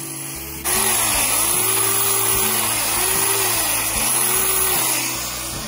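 Electric belt sander grinding a horse's hoof wall. It bites in loudly about a second in, its pitch swelling and falling several times as it works over the horn, then eases off near the end. It is clearing diseased and separated horn out of a white line disease cavity.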